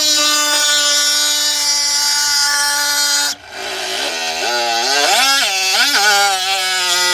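Handheld power tool cutting a relief cut: it runs at a steady pitch, cuts off suddenly a little over three seconds in, then starts again with its pitch repeatedly rising and falling as the trigger is varied.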